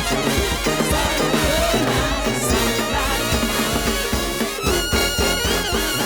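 Brass-led jazz band music with drums, the horns playing over a steady beat; about four and a half seconds in a horn slides up to a high note and holds it with vibrato.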